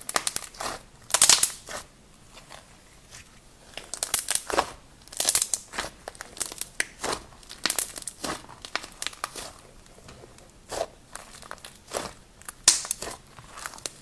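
Soft foamy slime squeezed and pulled in the hands, giving off irregular bursts of crisp crackling and popping as air pockets break. The loudest crackles come about a second in and again near the end.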